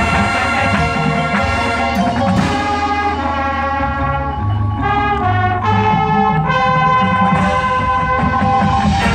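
High school marching band playing live: the brass sections hold full chords that change several times.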